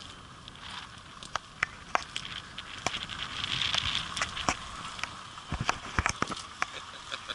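Footsteps on asphalt with scattered sharp clicks and handling bumps from a handheld camera, including two low thumps about five and a half and six seconds in.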